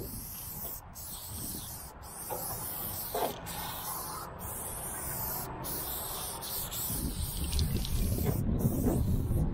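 Aerosol spray-paint can hissing as it lays down a line of paint, in long sprays broken by about seven brief pauses. A low rumble grows over the last couple of seconds.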